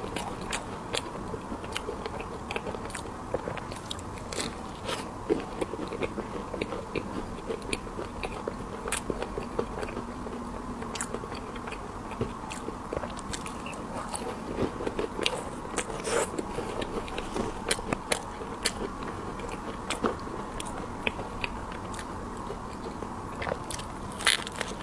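Close-miked eating of candied hawthorn: the hard sugar shell cracking and crunching under the teeth, with chewing in between, in many irregular sharp crunches.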